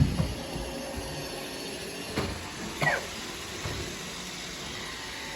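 Roomba robot vacuum running with a steady whirring hiss, with a sharp knock at the start and another about two seconds in. A short falling high-pitched cry, like a meow or a child's voice, comes just before the three-second mark.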